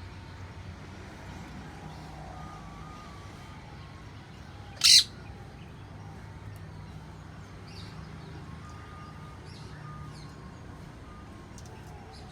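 A single short, loud parrot screech about five seconds in, over a steady low hum of traffic and faint chirps of other birds.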